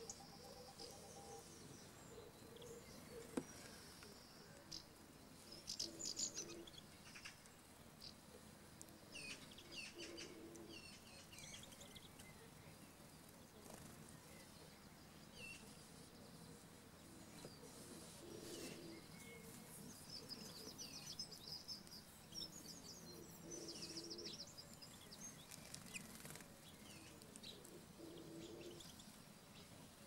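Faint chirping and twittering of finches and sparrows at seed feeders, in short bursts every few seconds.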